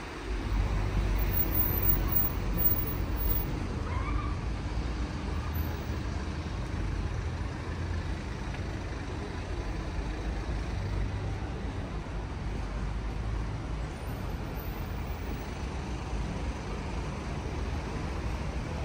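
City street ambience: a steady hum of road traffic from cars on the street alongside.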